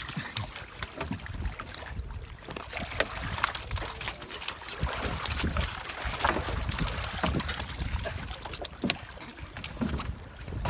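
Wind buffeting the microphone, with water sloshing and many scattered clicks and knocks from a mesh-covered metal fish trap being handled.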